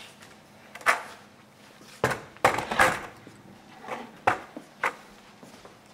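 Several sharp knocks and taps at irregular spacing, with the loudest cluster about two to three seconds in.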